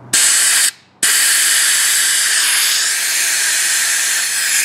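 Compressed-air blow gun blasting air out through a pleated paper mower air filter from the inside to clean it: a short hiss, then a long steady hiss from about a second in.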